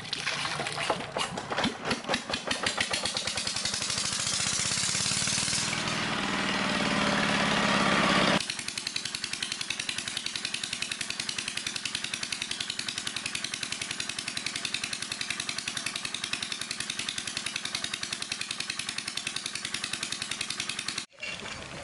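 Diesel engine driving the water pump for jet-drilling a well, running steadily with a fast, even beat. For about the first eight seconds a louder, noisier rushing sound with a pitch that rises near its end lies over it, then cuts off abruptly; a brief gap comes near the end.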